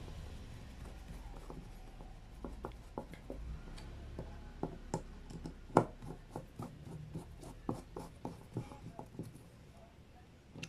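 Screwdriver turning the small screws of a motorcycle carburetor's diaphragm top cover during reassembly: irregular light metal clicks and scrapes as the tip seats and the screws are driven in, with one louder click near the middle.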